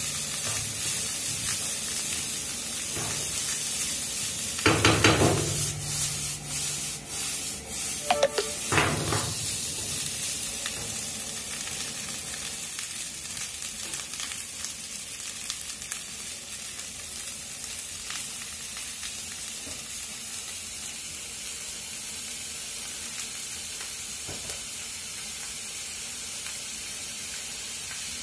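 Egg fried rice sizzling in a ceramic-coated frying pan, a steady high hiss throughout. In the first ten seconds or so a wooden spatula stirs the rice, with a few louder scrapes and knocks against the pan; after that the sizzle goes on alone.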